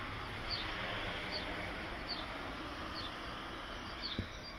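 A small bird calling over and over with short, high, downward-sliding chirps, about five of them at a little more than one a second, over a steady background hiss.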